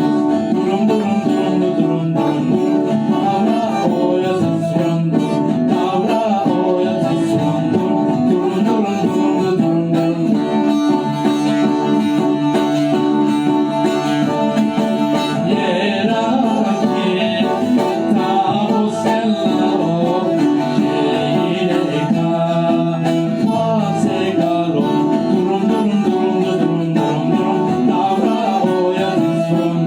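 Music: a song with singing over plucked string instruments such as guitar, at a steady level.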